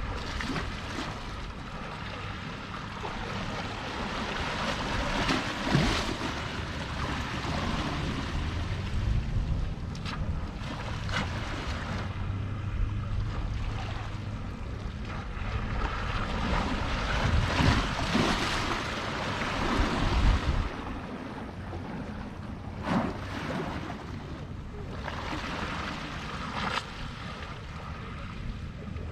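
Small sea waves washing and lapping at the water's edge, swelling and ebbing every few seconds with an occasional sharper splash, while wind rumbles on the microphone.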